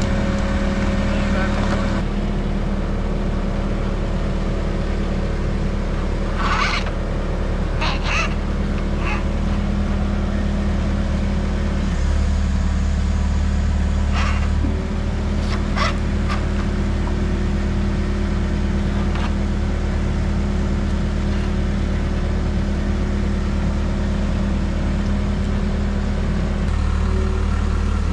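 Engine of a rented lifting machine running steadily, its note shifting about twelve seconds in and again about three seconds later. A few brief, sharper sounds come through over it.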